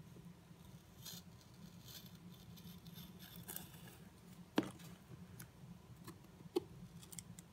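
Small scissors cutting through the paper government warranty seal on a wooden cigar box: a faint, scratchy cutting with a few sharp clicks, the loudest about halfway through.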